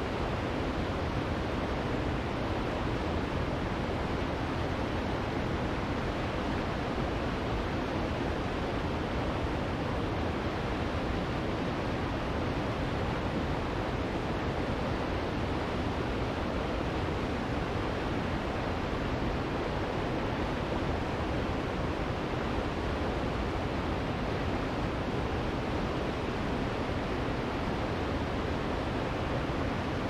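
A tall waterfall with a drop of about ninety feet pouring steadily: an even rushing wash of falling water with no breaks or changes.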